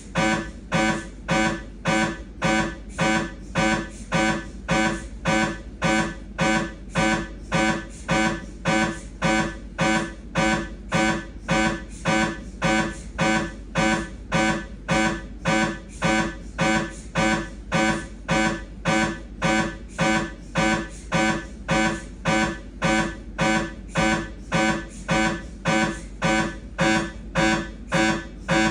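Siemens MAGNETOM Lumina 3 T MRI scanner's gradient coils running a T2-weighted sagittal turbo spin echo sequence. It makes a steady, loud series of pitched, buzzing pulses at about three every two seconds.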